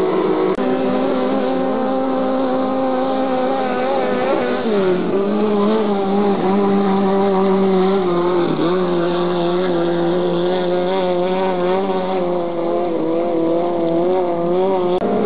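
Racing powerboat engines running flat out at high revs, a steady high-pitched engine note with several boats' tones overlapping. The pitch drops in steps about four and a half seconds in and again near the middle.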